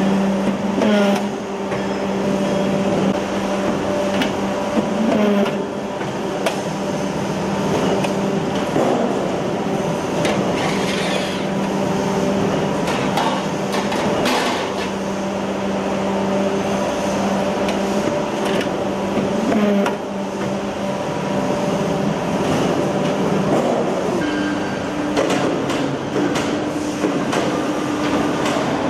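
Cold roll forming machine making steel shelf backplane profiles, running with a steady motor hum and scattered metallic clanks and knocks from the punching die and the moving steel strip. The hum changes about two-thirds of the way through, one tone dropping out and a higher one coming in.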